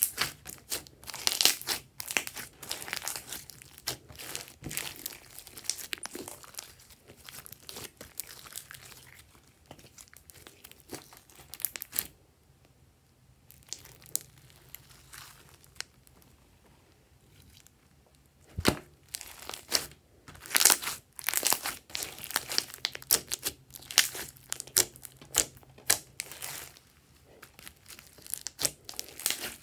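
Hands squeezing, pressing and folding glossy slime: sticky crackling and popping as air trapped in the slime is squeezed out. It comes in busy spells with a quieter stretch midway, broken by a single sharp pop just before the crackling picks up again.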